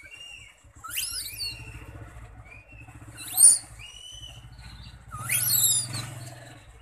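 Baby Javan langurs squealing: three loud, high-pitched calls that sweep up and down in pitch, about a second in, around three and a half seconds and near the end, with softer thin whistling calls between them.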